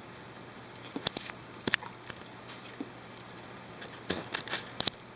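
A Weimaraner's mouth smacking and licking as it works peanut butter stuck to its tongue and palate: scattered wet clicks, with a quick run of them near the end.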